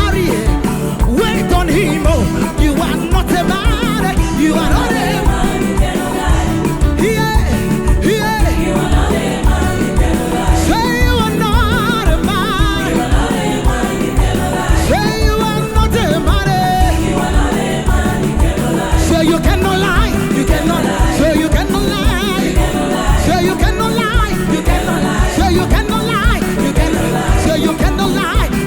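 Gospel song with singing over a steady, driving drum beat.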